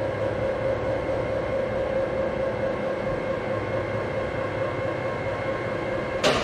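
Heavy machinery running steadily: a continuous drone with a constant whine, ending in a brief louder burst.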